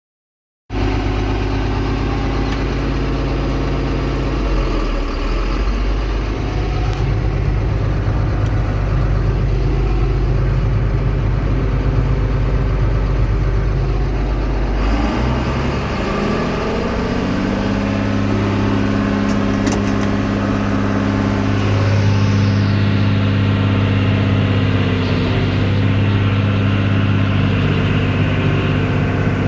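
Farm tractor engine running steadily; about halfway through it speeds up and then holds at a higher, steady speed.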